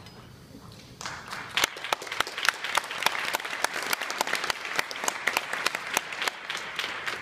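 Audience applause, breaking out about a second in and thinning out near the end.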